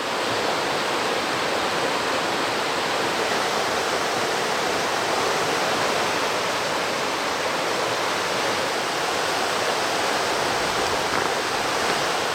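Steady rush of flowing water, fading in at the start and then holding level.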